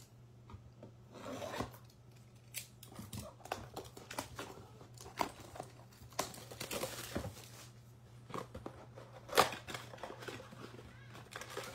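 Panini Absolute baseball blaster box being opened by hand: cardboard tearing, rustling and scattered clicks, with one sharp snap about nine seconds in as the box is pulled open.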